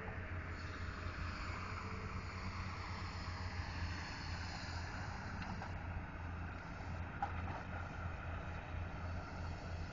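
Steady low engine drone of a moving vehicle, with road noise and wind buffeting the microphone.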